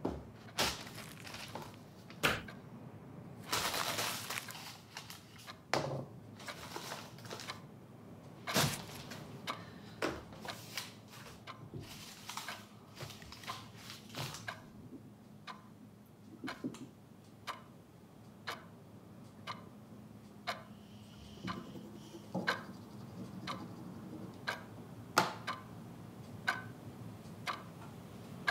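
Sheets of lined notepad paper being torn and crumpled, with pen scratches on paper, followed by a run of sharp ticks, roughly one a second, like a ticking clock.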